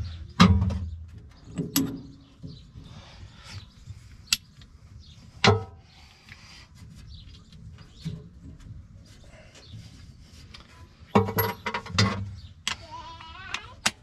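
A series of sharp metal clanks and knocks, some ringing briefly, as bolts, socket and impact wrench are handled against the skid steer's steel frame, with a quick cluster of knocks about eleven seconds in. A short wavering high-pitched call comes near the end.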